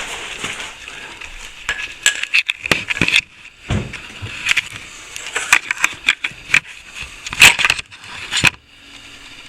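Steel plastering tools scraping and clinking against each other and the mixing container as plaster is worked, in irregular bursts with a few knocks and a heavy thump about four seconds in; it stops suddenly about eight and a half seconds in.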